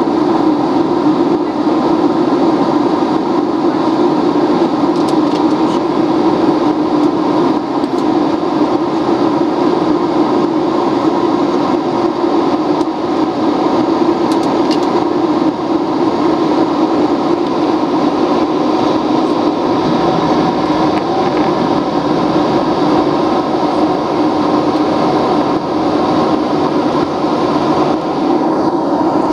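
Steady drone of a jet airliner in flight, heard inside the cabin: engine and airflow noise at a constant level, with no change in pitch.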